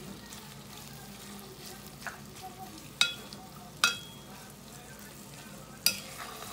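Shredded roast pork sizzling as it is reheated in a metal pot while being stirred, with a spoon clanking sharply against the pot four times.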